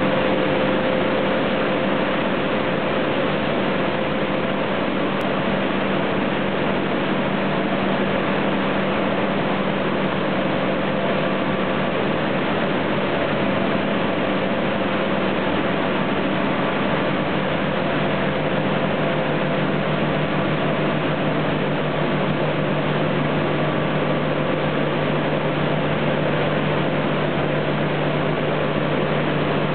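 BoVac vacuum pan filter running as it filters and dewaters aluminium hydrate: a loud, steady machinery rush with a low hum that drops slightly in pitch a little past halfway.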